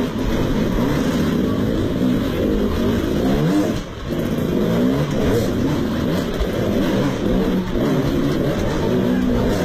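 Motocross dirt bike engine revving up and down as the throttle is opened and closed again and again. It drops off briefly about four seconds in.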